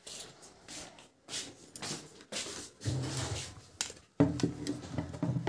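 Household clatter: scattered knocks and clicks, with a low hum coming in about three seconds in.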